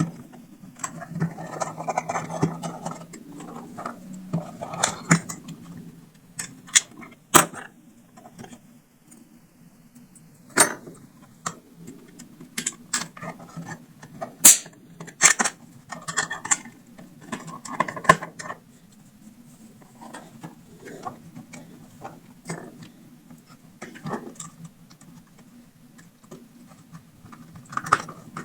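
Irregular clicks, taps and short scraping rustles of small parts and hand tools being handled while a loudspeaker driver is swapped in a Bluetooth speaker, over a steady low hum.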